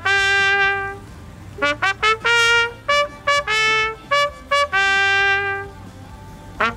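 Trumpet playing a fanfare-like call in three phrases. Each phrase is a quick run of short notes closing on a long held note, with brief pauses between them, and another run starts at the very end.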